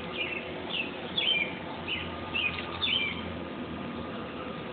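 Songbirds chirping, a string of short sliding calls in the first three seconds, over the steady background drone of a 13-year periodical cicada chorus.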